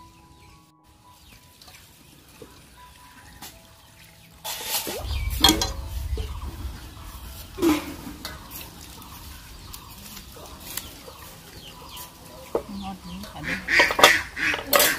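Chickens clucking a few short times, with a low rumble for a few seconds near the middle.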